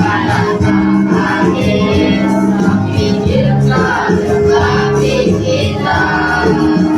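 A choir of young junior-high students singing a song together, with held sung notes throughout.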